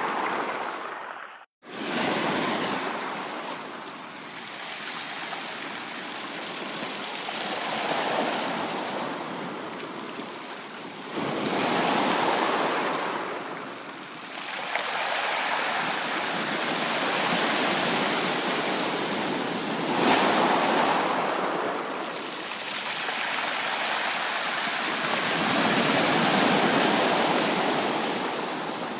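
Ocean waves washing onto a beach, the surf swelling and ebbing every few seconds. The sound cuts out for a split second about a second and a half in.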